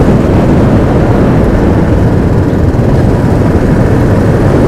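Royal Enfield Classic 350's single-cylinder engine running steadily at cruising speed, mixed with loud, steady wind rush on the microphone from riding.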